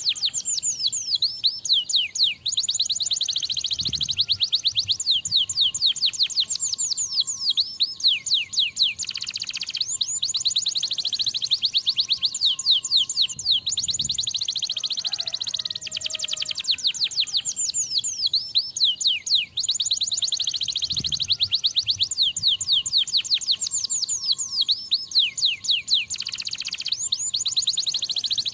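Domestic canary singing a long, fast song of rapid trills and rolls, broken by short pauses every few seconds.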